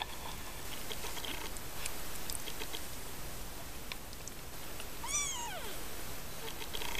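A 17-day-old Siamese kitten gives one short mew, about five seconds in, that rises then falls in pitch. Faint scattered clicks come from the litter.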